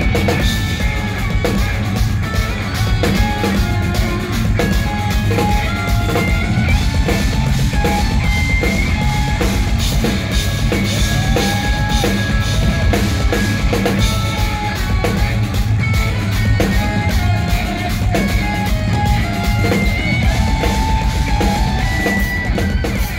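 Live instrumental progressive metal band playing loud: eight-string electric guitars over a busy drum kit with fast, dense drum strokes and bass drum.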